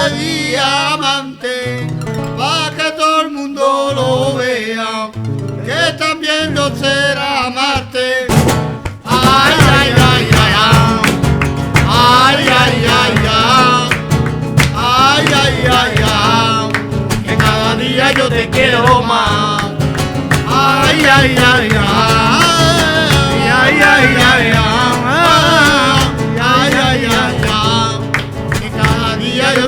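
Flamenco singing, a melismatic wavering voice, with acoustic guitar accompaniment. About eight seconds in, the accompaniment becomes fuller and louder with dense strummed strokes.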